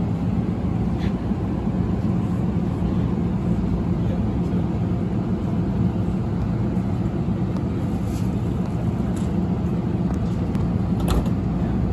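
Passenger train running past with a steady, loud rumble, and a few sharp clicks, the clearest near the end.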